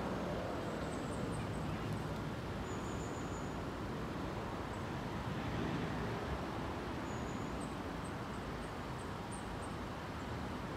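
Steady hum of distant road traffic and town background, with faint high bird chirps about a second in and again in the later part.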